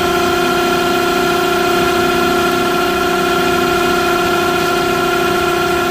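Smithy AutoMate LT1440 CNC lathe spindle running at a steady 1800 RPM with a loud whine of several steady tones. The whine comes from worn-out spindle bearings that feel rough and ticking when turned by hand.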